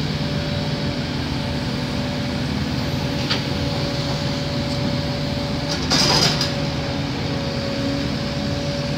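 Diesel engines of a tracked excavator and a site dumper running steadily while the excavator loads silt from the drained canal bed into the dumper's skip. A short, louder, noisy burst comes about six seconds in.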